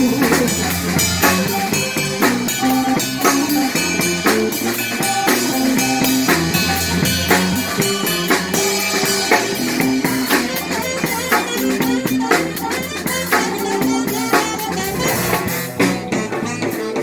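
Live band playing an instrumental passage without vocals: drum kit keeping a steady beat under bass and guitar.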